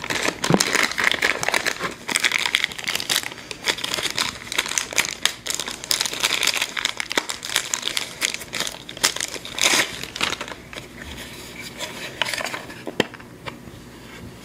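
Clear plastic packaging bag crinkling and rustling as it is handled and pulled open, a dense crackle that thins out over the last few seconds. A single sharp click comes near the end.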